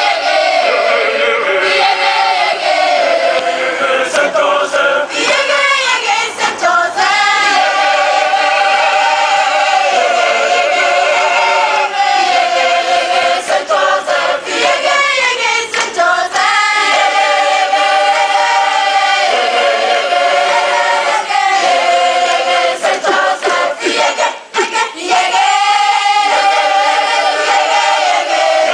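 A children's choir of about thirty voices singing together in long, held phrases.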